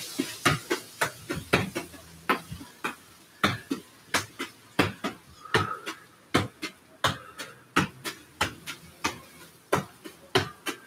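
A football being juggled in keepy-ups: a steady series of sharp thuds as it is struck, about three touches a second.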